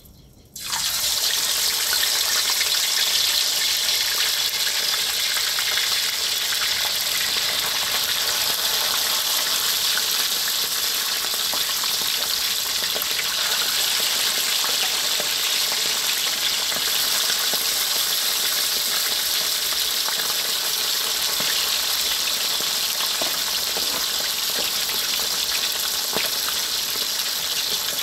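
Salted whole fish deep-frying in hot oil in a steel wok. The sizzling starts suddenly about half a second in as the fish goes into the oil, then carries on as a loud, steady hiss.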